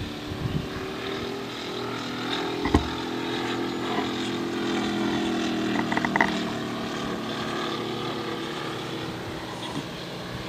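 Moki 150 cc five-cylinder radial engine of a large radio-controlled model airplane, running steadily in flight with a propeller drone. It grows louder toward the middle as the plane passes and fades near the end. A few sharp clicks come through, the loudest about a third of the way in and again around the middle.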